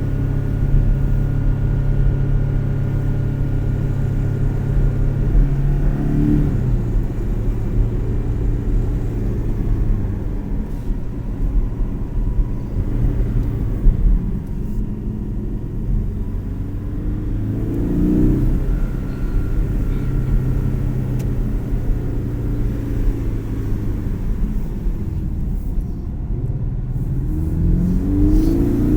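Porsche 718 engine running under load while driving, a steady drone whose revs climb briefly three times: about six seconds in, around the middle, and near the end.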